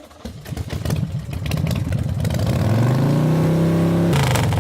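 Motorcycle engine revving: the pitch climbs from about halfway through and is held high, then breaks off shortly before the end.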